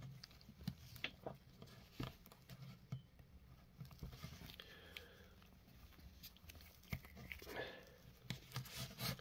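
Faint handling noise from an S.H.Figuarts Darth Vader action figure: soft, irregular clicks of its plastic parts and a light rustle of its fabric cape under the fingers.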